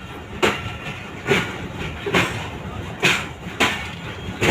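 Passenger train's wheels clacking over rail joints while under way: sharp knocks about once a second, some in quick pairs, over a steady rumble.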